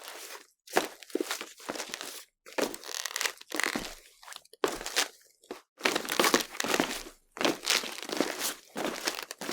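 Footsteps crunching over a crunchy surface, roughly two steps a second with a couple of brief pauses; each step is a short, crackly crunch.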